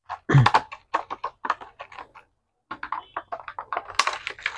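Irregular run of light clicks and taps from frog fishing lures being handled, in two bursts with a short pause a little after two seconds in.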